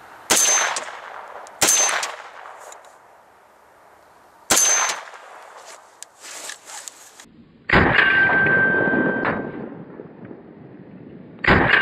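9mm semi-automatic carbine gunshots: three sharp single shots from a Sterling Mk4 over the first five seconds, then two louder single shots with a longer ring about four seconds apart, the last near the end.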